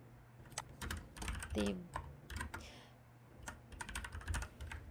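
Typing on a computer keyboard: irregular key clicks as a short phrase is typed, with a brief murmured syllable of voice about one and a half seconds in.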